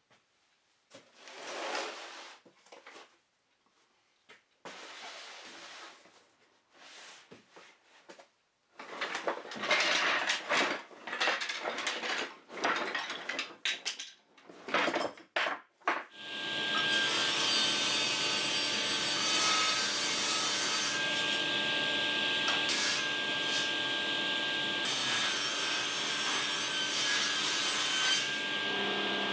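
Wooden scrap offcuts knocking and clattering as a box of them is tipped out and sorted. About halfway through, a table saw spins up and runs steadily while strips of wood are pushed through the blade.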